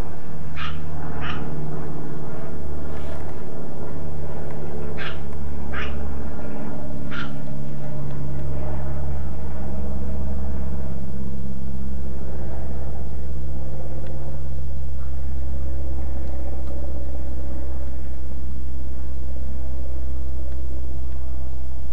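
Dogs barking: about six short, sharp barks in the first seven seconds, then none. A steady low rumble underneath is the loudest sound throughout.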